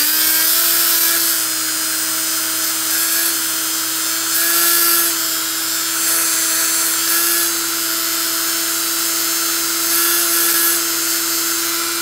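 Dremel rotary tool running at a steady high speed with a steady whine, its bit scrubbing rust and bluing paste out of a small hole in a percussion-lock part.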